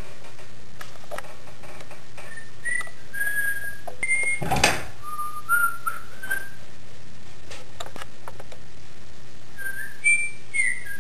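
A person whistling a tune of short held notes at changing pitches, breaking off partway through and starting again near the end. A short thump comes about four and a half seconds in.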